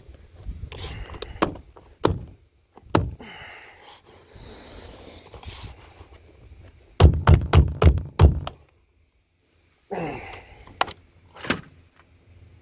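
Roof rack parts on a minivan roof being knocked into place by hand: scattered thunks and knocks, then a quick run of about six hard knocks in a row past the middle, and a few more near the end.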